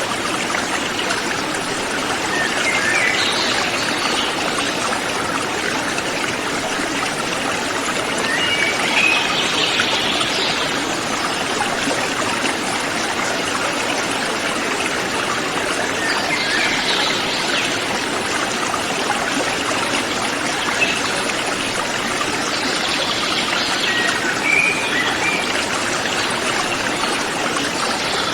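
Mountain river flowing steadily, a continuous rush of water, with brief higher-pitched accents standing out every six to eight seconds.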